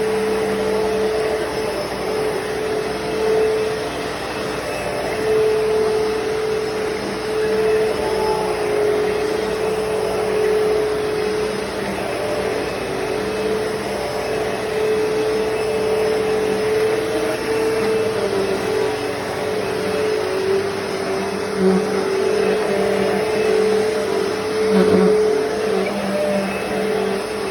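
Hoover Deluxe Elite Rewind vacuum cleaner running while vacuuming: a steady motor whine over a rush of air, with small swells and dips in loudness.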